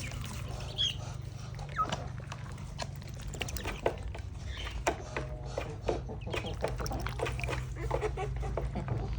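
Backyard chickens and ducks: a few short scattered calls and many small clicks over a steady low hum.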